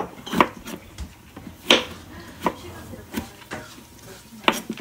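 Kitchen knife slicing peeled Italian gourd into sticks, the blade knocking on a white cutting board in about six irregularly spaced strokes.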